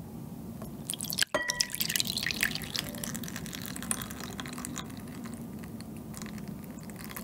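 Milk poured from a glass jar into a glass bowl, a steady stream running into the bowl from about a second in.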